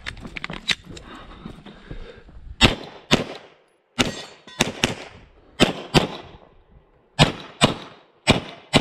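Handgun shots fired during a practical-shooting stage run: about ten shots, mostly in quick pairs, starting a couple of seconds in. Before them come small clicks and rustling.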